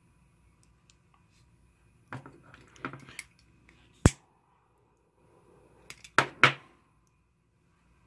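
Handling clicks and rustles, then one sharp click from a butane torch lighter's igniter about four seconds in, followed by a faint hiss, used to heat 3D-printer filament ends for welding. A few more loud clicks and knocks come about six seconds in.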